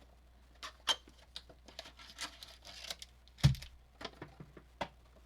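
Foil wrapper of a basketball trading-card pack being torn open and crinkled, with many short crackles. There is one louder thump about three and a half seconds in.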